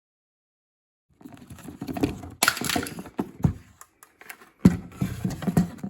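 Plastic shifter-boot trim being handled and worked apart by hand: an irregular run of clicks, knocks and rustling that starts about a second in.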